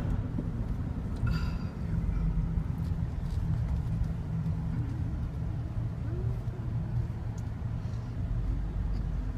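Car in motion, heard from inside the cabin: a steady low road and engine rumble.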